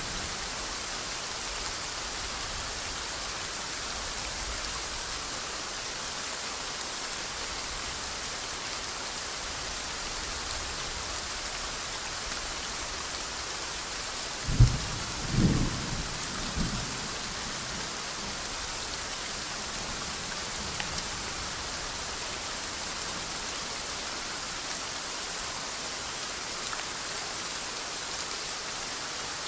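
Steady soft rain, with a thunderclap about halfway through: one sharp crack, then two shorter rumbles over the next two seconds.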